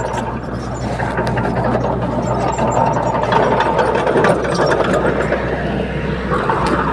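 Heavy diesel earthmoving machine engine running steadily, with scattered light metallic clanks.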